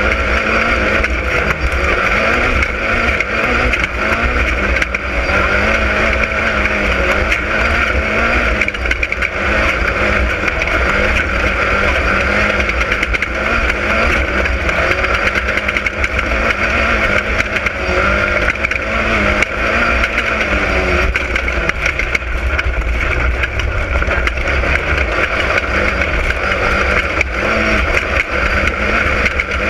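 Class 10 off-road desert race car's engine running hard, its pitch rising and falling as the revs change, over a constant heavy low rumble.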